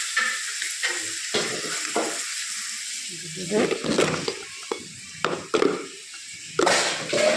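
Food sizzling in a frying pan while it is stirred, with a spoon or spatula scraping and clicking against the pan at irregular moments.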